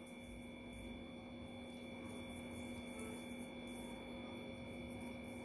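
Quiet room tone carrying a steady electrical hum made of several fixed tones. No distinct spreading or scraping strokes stand out.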